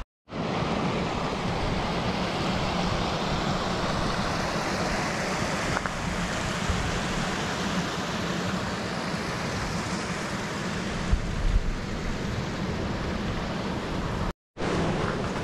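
Steady wind rushing over the microphone on an exposed mountain path, with a couple of brief thumps about eleven seconds in. The sound drops out for a moment near the end.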